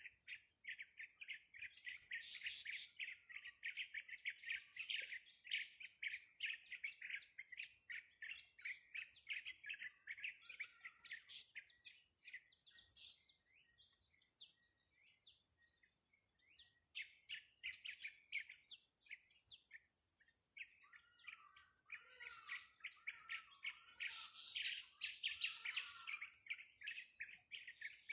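Small songbirds chirping and chattering in rapid, dense runs of short high notes, with a lull of a few seconds about halfway through before the chattering picks up again.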